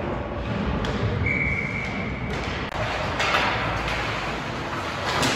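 Ice hockey practice noise in an indoor rink: skates scraping the ice, with sticks and pucks knocking. A short, steady high tone sounds a little over a second in.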